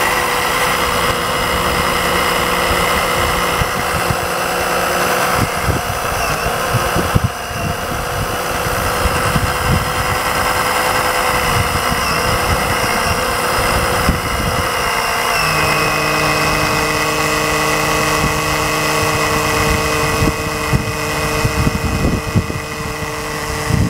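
Fluid-extraction pump running steadily, sucking CVT fluid out of the transmission from the top through a hose. Its tone changes about fifteen seconds in.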